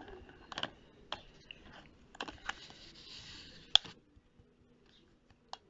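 Plastic clicks and taps from a clear refill spray bottle and its pump head being handled and fitted together, with one loud sharp click just under four seconds in and a smaller one near the end.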